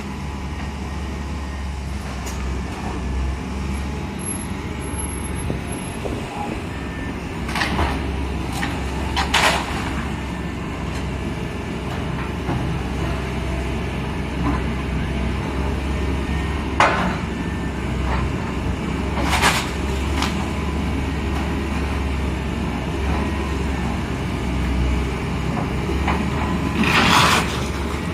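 Heavy demolition equipment's diesel engine running steadily, with about five sharp crunching or banging noises of the building being torn down, the loudest near the end.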